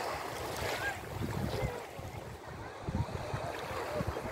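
Small waves of a calm sea lapping at the shoreline, with wind gusting over the microphone.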